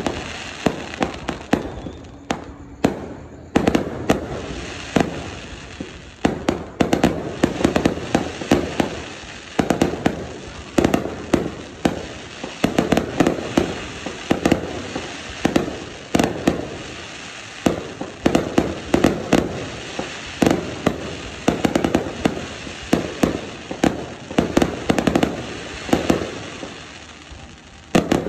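Aerial fireworks bursting in a continuous barrage: sharp bangs in quick clusters every second or two, with crackling between them. There is a short lull about two to three seconds in.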